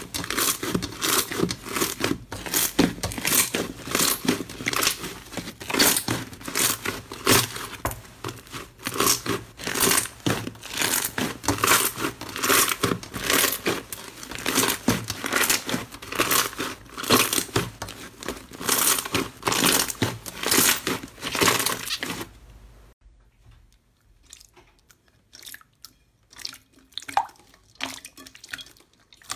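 Hands kneading and stretching a large mass of green slime: a dense run of sticky crackling and popping. About three-quarters of the way through it stops, and a few soft, faint squelches follow from glossy dark green slime being pressed in a bowl.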